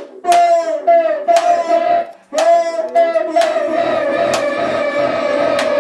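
Circuit-bent electronic noise music. A droning electronic tone is cut by sharp clicks, each trailing off in a falling zap, roughly two a second. It drops out briefly about two seconds in, then settles into a denser, steady buzzing drone.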